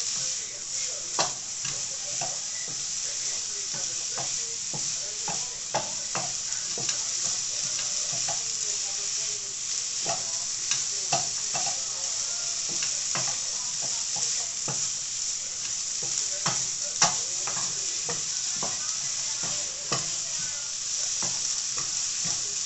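Vegetable bolognese mixture sizzling in a pan on the hob: a steady frying hiss with scattered pops and clicks.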